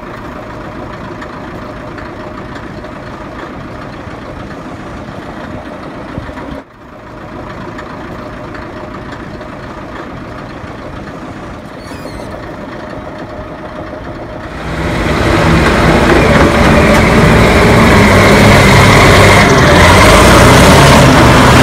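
Heavy diesel engine of a Cat 631D wheel tractor scraper running steadily, briefly cut off about a third of the way in. About two-thirds of the way in a much louder music track with guitar comes in over it.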